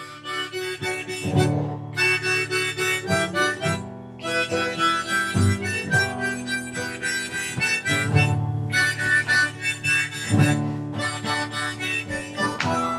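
Background music led by a harmonica, playing a run of held and shifting notes.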